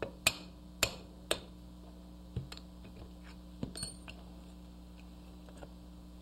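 Three sharp taps of a hammer driving the steel bolt stop pin out of a Ruger 10/22 receiver, then a few lighter knocks and a ringing metal clink about two to four seconds in.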